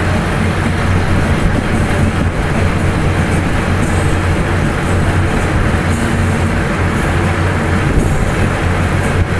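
Engines of a column of military vehicles, some towing boats on trailers, running together as a steady low drone under a haze of road noise.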